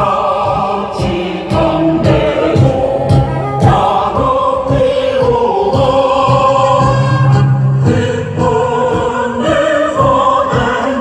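Music playing loud: a choir singing a song in long held notes over a steady instrumental bass line.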